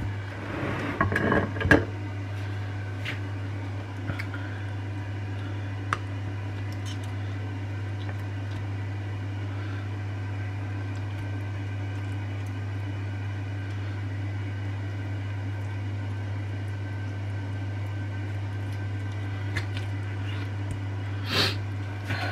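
A steady low hum from a running kitchen appliance. A brief clatter of dishes near the start, then a few light knocks of a knife on a plastic cutting board.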